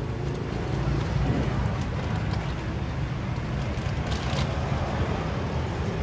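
Steady low rumble of background street noise, with a few light clinks of a metal ladle against a stainless steel mixing bowl about two and four seconds in.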